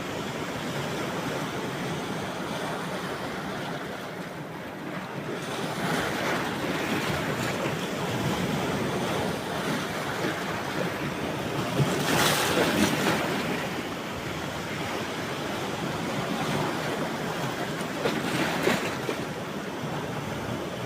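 Caspian Sea surf washing onto a beach: a steady rush of waves, with louder breakers about twelve seconds in and again near the end.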